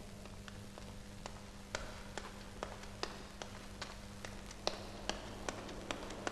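Footsteps on a hard floor, sharp clicks about two or three a second, over a steady low hum.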